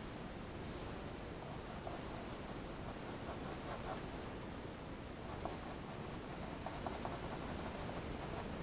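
Pencil scratching on drawing paper in runs of short, quick strokes as hair is hatched in, over a steady low room hiss.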